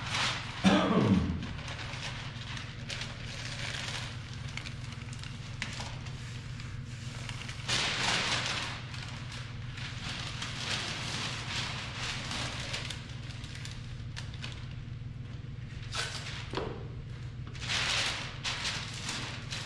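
Masking paper crinkling and rustling as it is handled and pressed against the panel, with masking tape pulled and pressed down; a short falling squeal about a second in is the loudest sound. A steady low hum sits underneath.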